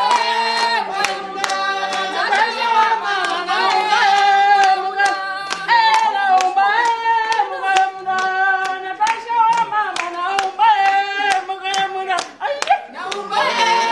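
A group of people singing together unaccompanied, clapping their hands in a steady rhythm of about two to three claps a second.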